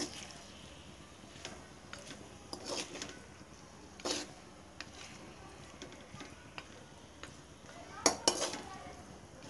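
Metal spoon scraping and clinking against a metal kadhai as chicken pieces are stirred while frying, in irregular separate strokes, the loudest pair about eight seconds in.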